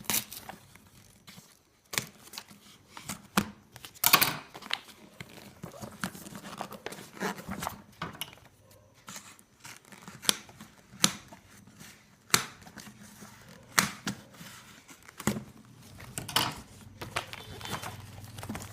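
Parcel packaging being torn open and crumpled by hand: an irregular series of short, sharp rips and rustles of tape, paper and plastic wrapping.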